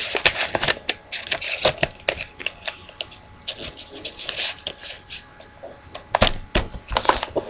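Origami paper being folded and creased by hand: irregular crackling and rustling with sharp snaps of the paper, loudest in a cluster of crisp clicks near the end.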